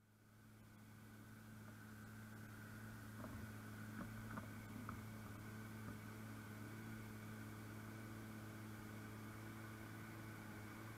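Faint, steady drone of a self-propelled forage harvester and a John Deere 8R tractor pulling a silage trailer, both running while harvesting at a distance. The drone fades in over the first couple of seconds, with a few light clicks about four seconds in.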